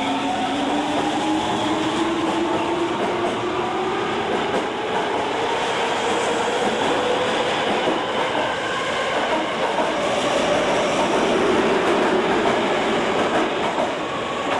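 Osaka Metro Midosuji Line subway train pulling out of the platform, its motors whining upward in pitch as it accelerates over the noise of the wheels on the rails.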